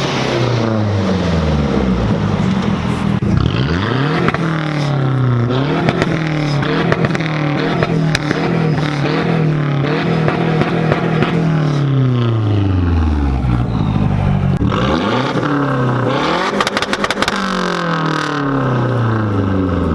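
Mazdaspeed's 2.3-litre turbocharged four-cylinder pulled hard and let off again and again, its pitch rising and falling with each pull. The blow-off valve is blocked off, so the turbo flutters on lift-off: a rapid chatter about three-quarters of the way in.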